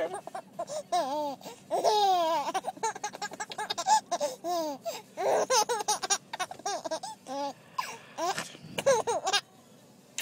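Baby laughing and giggling while being tickled, in many short high-pitched bursts that rise and fall in pitch.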